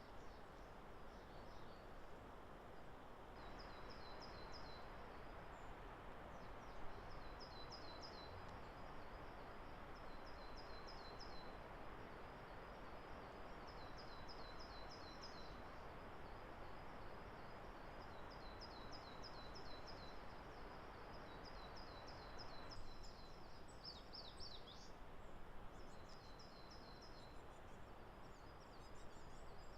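A small songbird repeats a high-pitched phrase of quick chirping notes, many times in succession, over a faint steady hiss. A louder layer of that hiss comes in abruptly a few seconds in and cuts off abruptly about 23 seconds in.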